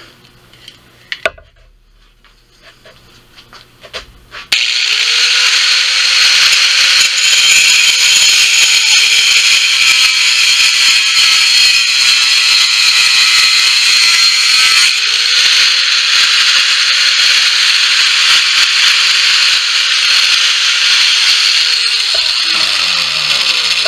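Angle grinder cutting sheet metal: after a few seconds of faint handling clicks it starts suddenly and grinds loudly and steadily with a high whine. Near the end it comes off the metal and winds down, its pitch falling.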